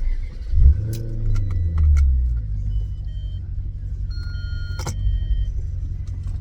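Maserati GranTurismo S 4.7-litre V8 on a cold start: the engine bursts loudly into life, its revs flare and fall back within about two seconds, then it settles into a steady fast cold idle. The owner finds it definitely loud.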